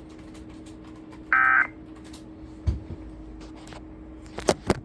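A single short burst of Emergency Alert System digital data tones, a buzzing electronic warble lasting about a third of a second: a SAME end-of-message burst marking the end of the alert. A low thump follows, then a few sharp clicks near the end, over a steady low hum.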